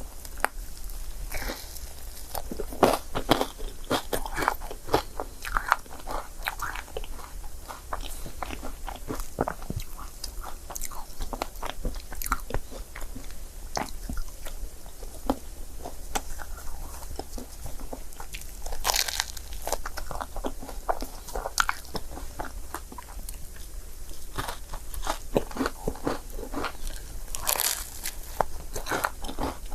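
Close-miked biting and chewing of a crepe: irregular wet mouth clicks and soft crunches, with a couple of louder, longer bites about two-thirds of the way through and near the end.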